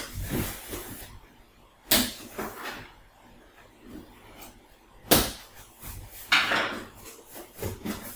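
Cardboard box being opened and handled by hand: two sharp knocks, about two and five seconds in, and a longer scraping rustle of cardboard a little over six seconds in.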